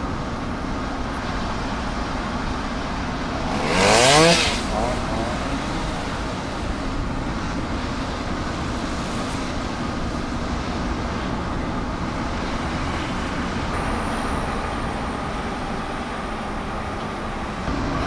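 Road noise heard from inside a moving car: engine and tyres running steadily on asphalt, with a brief, louder whoosh about four seconds in.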